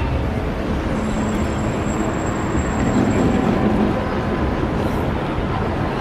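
City street traffic: vehicle engines and passing cars in a steady wash of noise.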